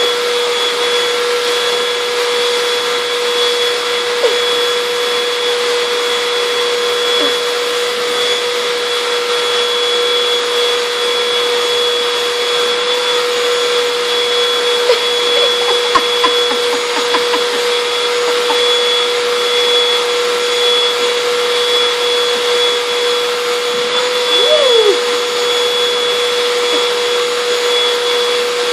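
Vacuum cleaner running steadily, its motor giving a constant whine over the suction noise, with a few brief knocks along the way.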